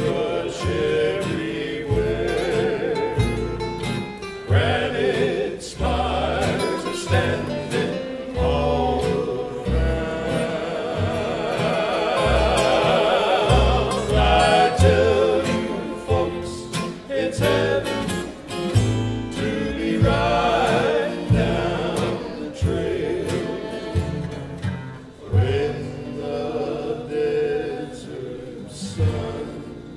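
Western cowboy band performing live: several voices singing in close harmony over strummed acoustic guitars, a plucked upright bass and a fiddle.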